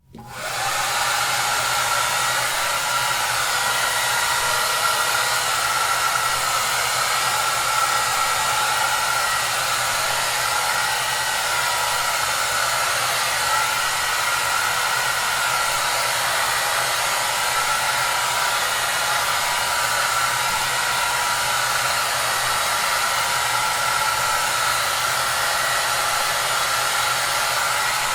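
Hair dryer running steadily: a continuous airy whoosh with a whine over it and a low motor hum, fading in within the first half second.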